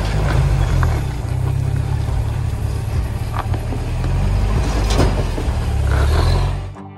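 Rock-crawling truck's engine running under load as it climbs over granite ledges, with a few sharp knocks from tyres and chassis on the rock.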